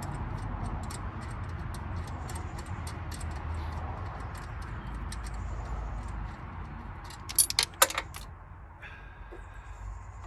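Small metal parts of a battery clamp clicking and clinking as they are handled in a car's engine bay, then a brief loud metallic clatter about three-quarters of the way through as loose nuts are dropped down into the engine bay.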